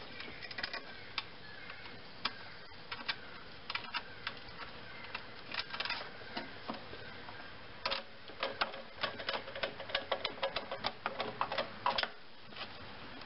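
Screws being driven with a quarter-inch nut driver to fasten the pull-cord winder back in place: a run of irregular small metal clicks, coming thick and fast in the last few seconds.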